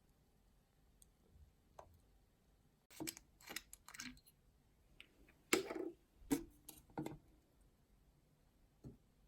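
A handful of short clicks and knocks from objects being handled, bunched together between about three and seven seconds in, with one fainter knock near the end.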